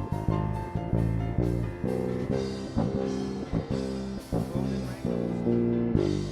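Instrumental worship music with no singing: chords struck in a steady rhythm over drums.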